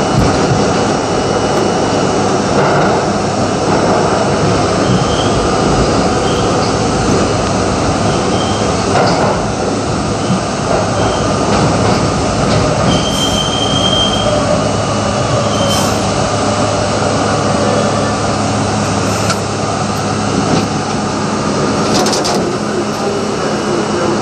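R32 subway train running underground, heard from the front of the car: a loud, steady rumble of wheels on rail with a constant low hum. A few sharp clicks come through, and a brief high wheel squeal sounds about halfway through.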